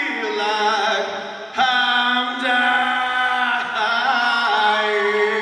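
A man singing a rock song live into a handheld microphone, holding long sustained notes. A new long note begins about one and a half seconds in and is held for about two seconds.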